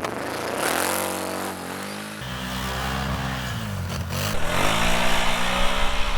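ATV engine revving: its pitch climbs, drops briefly about halfway through, then rises and holds.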